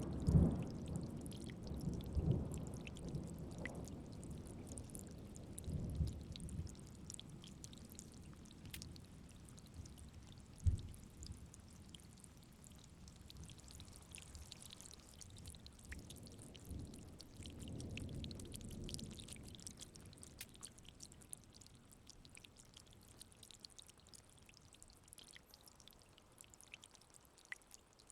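Rain falling with a steady light patter, under rolls of thunder: a low rumble at the start that fades over several seconds, a short low thump about ten seconds in, and another softer rumble a little past halfway.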